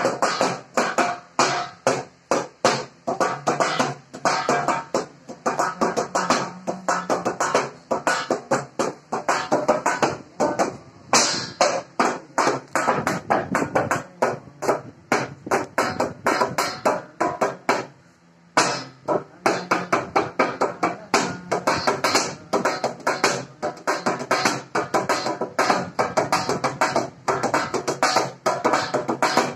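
A metal thali plate played as a hand drum: a fast, unbroken run of rhythmic strikes, with a short break about two-thirds of the way through.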